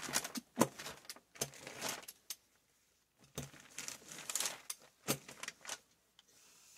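A brayer, paper and plastic sheeting being handled on a craft table: irregular clicks and knocks with short rustles.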